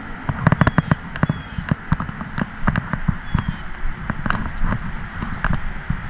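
Close-up handling noise: irregular clicks, knocks and rustles with low thumps, from gear being handled and footsteps in dry grass and brush.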